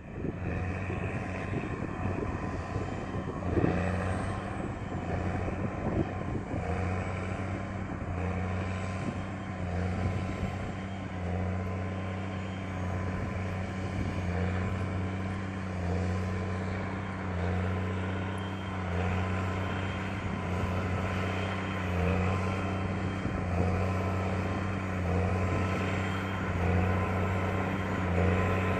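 Tractor engine running steadily while pulling a large square baler through straw windrows, with a faint regular beat repeating a little more than once a second.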